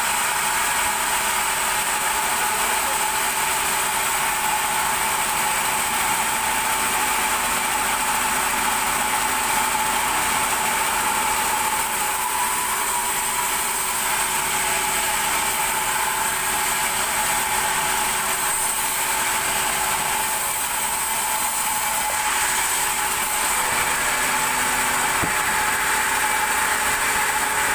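A large vertical sawmill band saw running and cutting lengthwise through a thick block of timber: a steady whine over the hiss of sawing, holding an even level.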